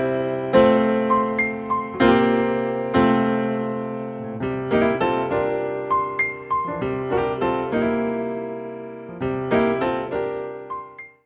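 Intro music of solo piano: chords and melody notes struck one after another, each ringing and fading, ending abruptly.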